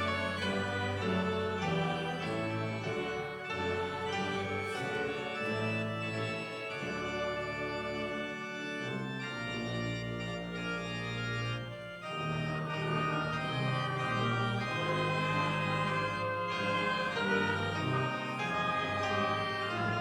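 Organ playing a hymn in steady, sustained chords that change every second or two.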